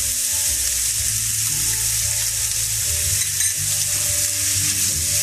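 Diced bacon sizzling steadily in hot olive oil in a non-stick frying pan as it starts to brown, stirred with a utensil.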